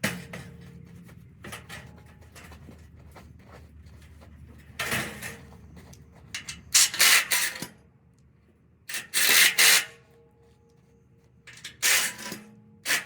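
Several short, loud bursts of scraping and rubbing over a low steady hum.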